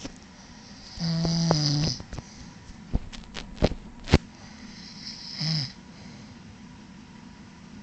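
Snoring: one long, deep snore about a second in, a few sharp clicks about three to four seconds in, then a shorter, fainter snore a little past five seconds.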